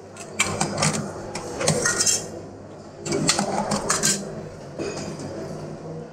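Metal serving spoons and tongs clattering against stainless-steel buffet trays, in two bursts of clinks.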